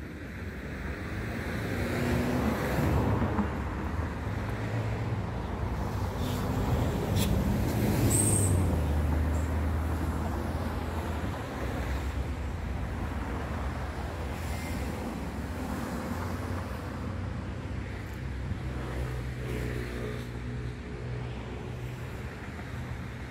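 Road traffic: motor vehicles passing on a road, with a low engine hum that swells and is loudest about eight seconds in.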